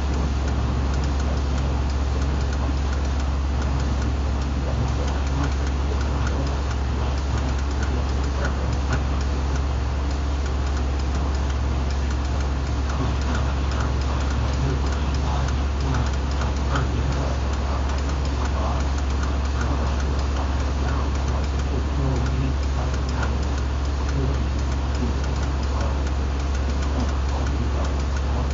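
Electrodynamic vibration shaker running a random vibration test: a steady noisy hum over a strong low drone, with scattered light ticks.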